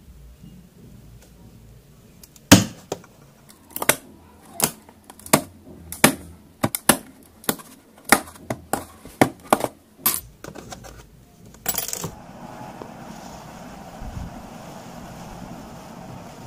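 Steel twist drill bits clicking and clinking against the hard plastic tray of a DeWalt bit case and against each other as they are lifted out one by one. The sharp clicks come irregularly, about two a second. A steady background hiss takes over near the end.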